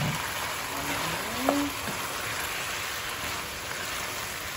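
A pan of potato and cauliflower curry simmering and sizzling, a steady hiss. About a second and a half in there is a short rising squeak.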